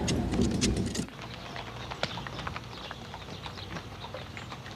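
A loud jumble with sharp clicks that cuts off suddenly about a second in, then a donkey's hooves clip-clopping on a dirt road as it pulls a wooden cart, with scattered light taps and clicks.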